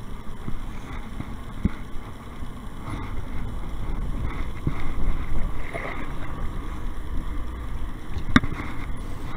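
Kayak on the water with a steady low rumble of water and wind, and a few sharp knocks on the hull, the loudest near the end.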